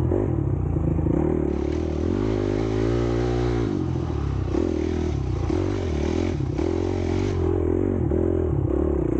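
Dirt bike engine running on a trail ride, its pitch rising and falling over and over as the throttle is opened and closed, with the bike clattering over rough ground.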